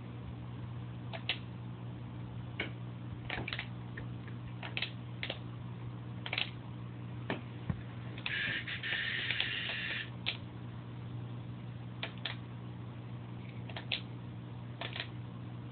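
Steady low hum from running aquarium equipment, with sharp clicks at irregular intervals and a short hiss about eight seconds in.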